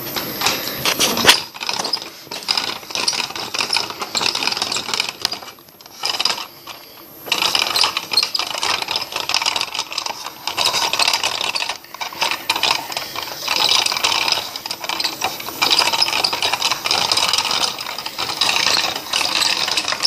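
Plastic spinner dial of a toy slime-making station being turned back and forth, a dense run of rapid clicks and rattles with a short pause about six seconds in.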